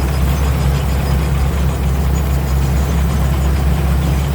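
Combine harvester's 270-horsepower turbocharged engine and machinery running steadily at a constant, even speed.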